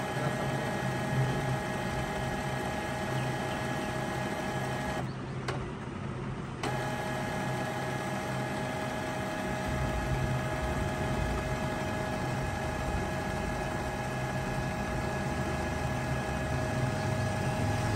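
Canon ink-tank printer running its initial setup cycle, a steady motor whine that stops for about a second and a half about five seconds in, then carries on.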